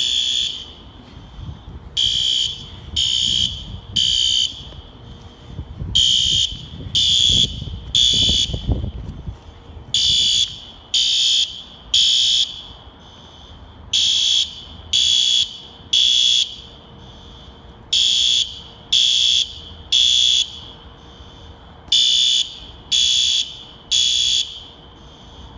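System Sensor fire alarm horns sounding a harsh, high-pitched blast three times, about one a second, then pausing and starting again: the temporal-three evacuation pattern, repeating steadily. The owner of the video takes it for a false alarm.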